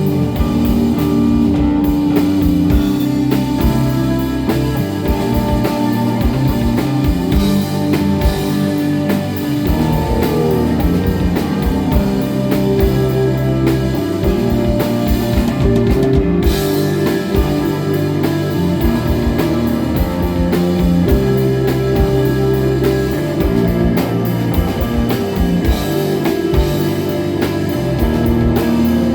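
Live instrumental desert rock band playing: electric guitar and bass holding sustained notes over a steadily played drum kit.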